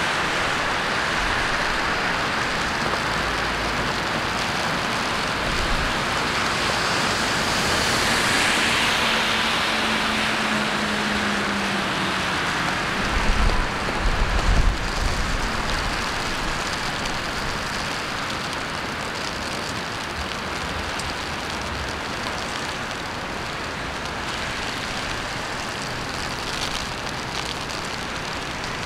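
City traffic on wet roads mixed with steady rain hiss. A vehicle passes about a third of the way in, and a few deep thumps sound about halfway through.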